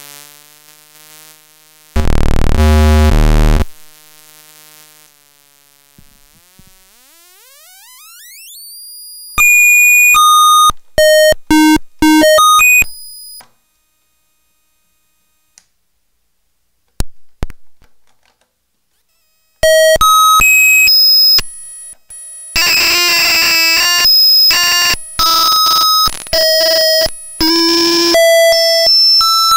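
Homemade circuit-bent chiptune noise sequencer playing electronic bleeps: a loud low buzz early, then a tone sweeping upward in pitch, then choppy runs of fast stepping beeps. After a pause of several seconds, a long, dense run of quickly changing beeps starts and goes on to the end.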